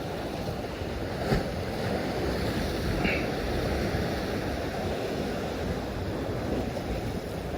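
Sea waves washing steadily on a rocky shore, a continuous rushing wash, with a brief knock about a second in.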